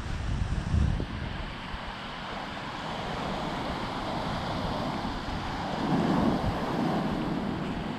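Small waves washing onto a sandy, rocky shore, with wind buffeting the microphone in gusts, strongest about a second in and again around six seconds.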